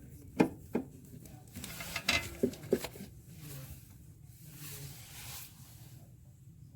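Hands-on repair work: about five sharp clicks and knocks in the first three seconds, with rustling in between, as tools and parts are handled.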